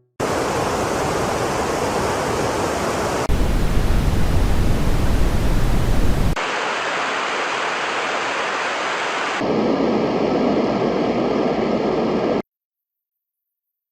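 White-noise machine playing its soothing noise sounds in turn: four different steady hissing noises of about three seconds each, switching abruptly, the second with a strong low rumble. Silence for the last second and a half.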